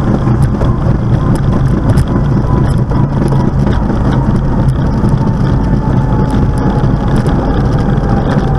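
Velocity canard pusher's engine running steadily on the runway roll, heard from inside the cockpit as a loud, even drone with rushing wind and rolling noise and a faint steady whistle above it.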